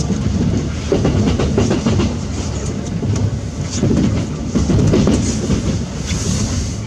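Running noise of an E353 series limited express heard inside the passenger car: a steady wheel-on-rail rumble with irregular clicks as the wheels cross rail joints and points.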